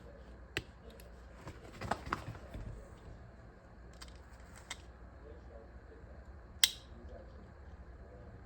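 Small clicks and rattles of a folding hammer multi-tool being handled and its parts worked, with a cluster of clicks about two seconds in and one sharp metallic click near the end.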